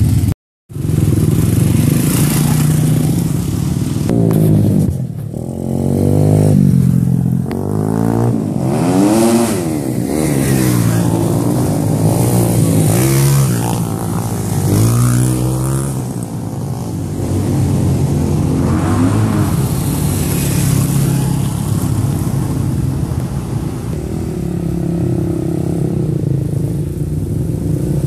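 Dirt bike engines running and revving as bikes ride past, with repeated rising and falling revs through the middle. The sound drops out briefly just after the start.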